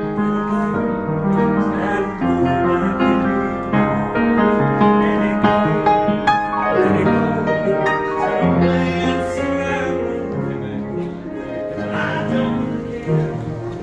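Music: piano with a singing voice.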